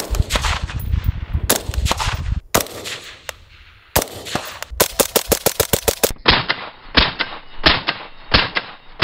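Suppressed IWI X95 Tavor rifle in 5.56 with an OSS HX-QD 556 Ti suppressor firing strings of shots, some rapid, some spaced out. After about six seconds the shots come roughly every 0.7 s and sound duller.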